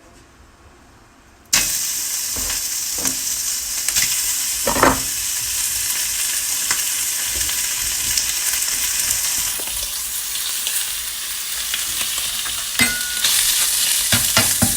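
Food sizzling in a hot Saladmaster stainless-steel pan with no oil. The sizzle starts suddenly about a second and a half in and then runs steadily, with scattered clicks of a utensil stirring in the pan.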